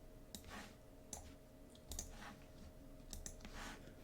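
Faint, irregular clicks of a computer mouse, about one every second, with a few soft swishes between them.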